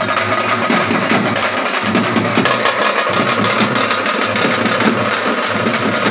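The loud, dense din of a packed festival street crowd around a procession chariot, with music mixed in.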